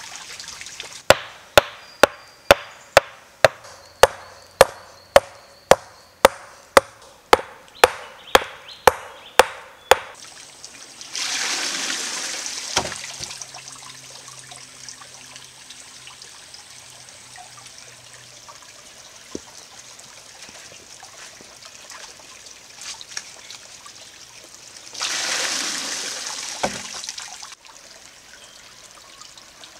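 Wooden water-powered hammer striking a stone anvil by a trickling stream. First comes a run of sharp, evenly spaced knocks, about two a second for some ten seconds. Then, twice, water rushes and splashes out as the beam tips, and the hammer drops with a single knock.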